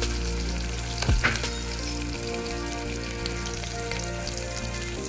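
Shallots, curry leaves and mustard seeds sizzling and crackling in hot oil in an iron kadai, with one sharp click about a second in.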